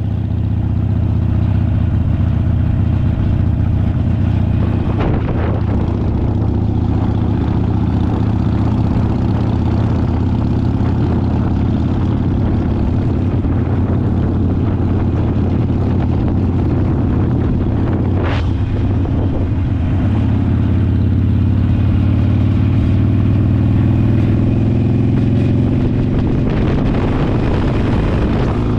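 Harley-Davidson V-twin motorcycle with a slip-on muffler cruising steadily at road speed, its engine note climbing a little near the end.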